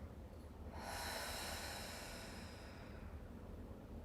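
One slow, deep breath, faint and airy, lasting about two seconds from about a second in, over a low steady hum.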